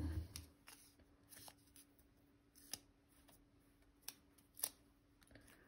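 Faint paper handling, a few soft clicks and taps, as an airmail sticker and stamps are pressed down onto a postcard, over a faint steady hum.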